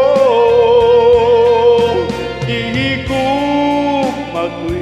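A man's voice holds the last note of a sung line in a Tagalog love ballad, wavering slightly, over a recorded backing track that carries on under it.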